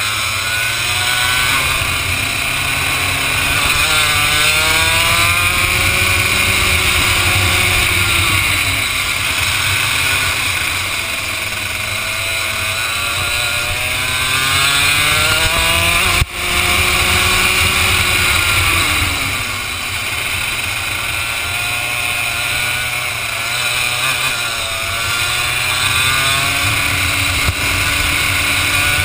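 Two-stroke ROK kart engine heard from the driver's seat, revving up along the straights and falling off into the corners, its pitch climbing and dropping several times over a steady hiss. A brief sharp dip about halfway through.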